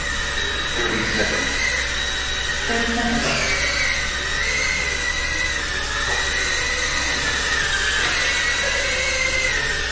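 Small indoor FPV racing drones buzzing, a high motor whine that rises and falls with throttle over a steady hiss.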